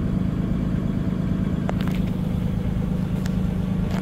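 Cummins B6.7 diesel engine fast-idling at about 1,050 rpm during a forced diesel particulate filter regeneration, a steady drone with a low hum, heard from the driver's seat. The raised idle is normal and required for the regen, so the engine works hard enough to heat the exhaust.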